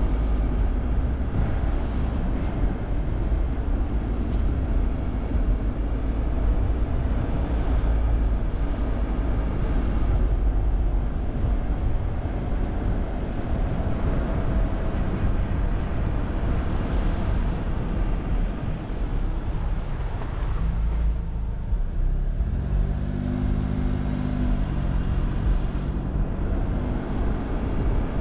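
Steady low road rumble of a car driving slowly along a street, with a short steady engine hum rising above it about two-thirds of the way through.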